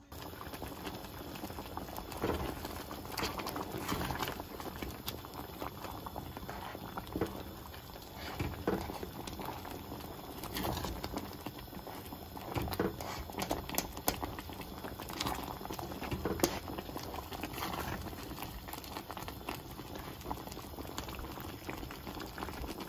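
Pot of nurungji seafood soup bubbling at a steady boil, with many small pops, as the scorched rice softens and swells in the broth.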